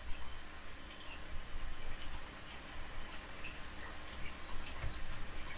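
Steady hiss and low rumble of background room noise on a voice microphone, with a faint click late on.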